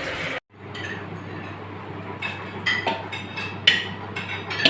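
A metal utensil clinking against a large cooking pot, with several sharp clinks in the second half, as the cooked biryani rice is mixed.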